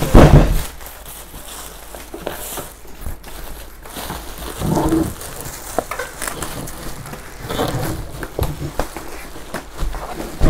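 Parts and packaging of a boxed bar stool being handled during unpacking: a loud thud right at the start, then scattered knocks and rustles.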